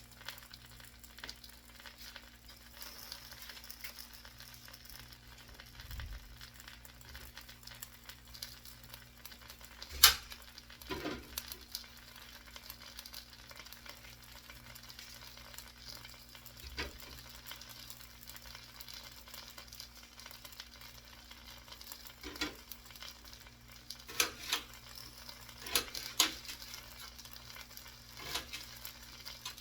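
Food frying in a pan with a steady low sizzle, broken now and then by sharp clicks and scrapes of a utensil against the pan, the loudest about a third of the way in and several more near the end.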